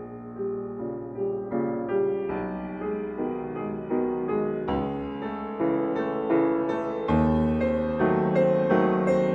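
Slow solo piano music: single notes and chords struck one after another, growing louder toward the end.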